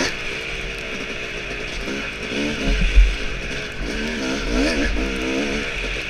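Yamaha dirt bike engine revving up and down under the throttle over a steady rush of wind and tyre noise, with a heavy thump about three seconds in.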